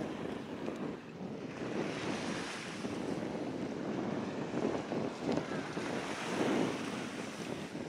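Small waves washing up on a sandy shore, swelling and fading a few times, with wind buffeting the microphone.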